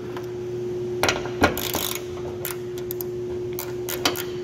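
Ratchet with a 12 mm socket tightening a bolt, its pawl clicking in short irregular runs, densest a little over a second in. A steady hum runs underneath.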